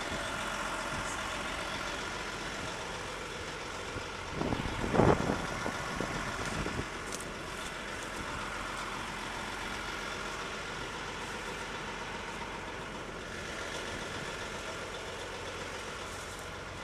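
Heavy diesel equipment idling steadily nearby. About five seconds in, a brief louder scuffing and rustling sounds close to the microphone.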